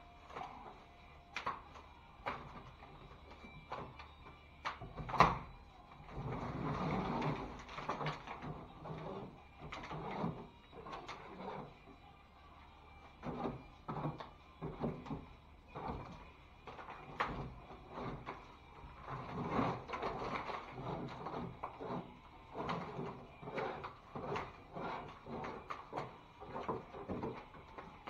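Loose, weathered drywall joint tape being scraped and torn off a sheetrock ceiling seam: irregular scraping and tearing with many small knocks and clicks, in longer spells about a quarter of the way in and again about two-thirds through.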